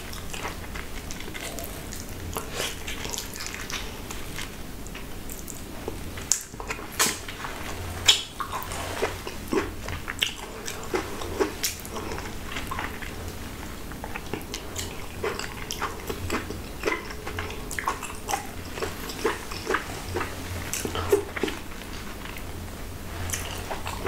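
Close-miked eating of a ripe, juicy Jamaican mango by hand: wet biting, sucking and chewing of the flesh off the fruit, with many short, sharp mouth clicks and smacks.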